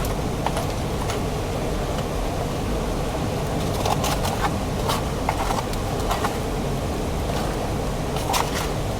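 River water flowing steadily, with a few sharp clicks scattered through it, most clearly about four, five and eight seconds in.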